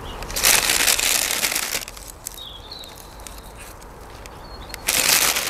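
A hand working bulbs into gritty compost mixed with perlite, giving a crunching, scraping rustle in two bursts: one of over a second near the start and another beginning near the end.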